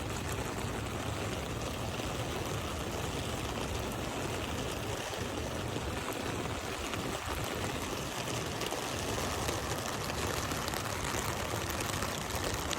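Steady rain with water running, an even rushing hiss.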